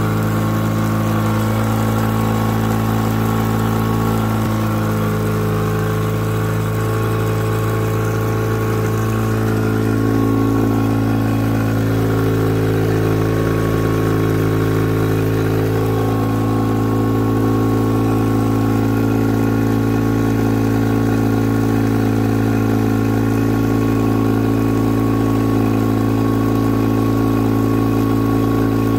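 Honda 15 hp four-stroke outboard motor idling steadily on its first run of the year, out of the water with a garden hose feeding its cooling intake. Its note shifts slightly and gets a little louder about ten seconds in.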